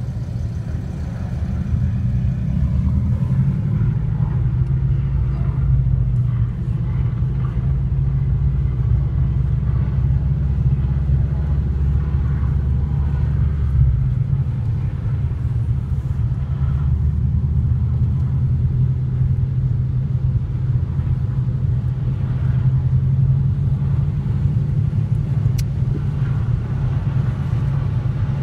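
Steady low rumble of a car's engine and running gear heard from inside the cabin, with its deepest part dropping away about halfway through.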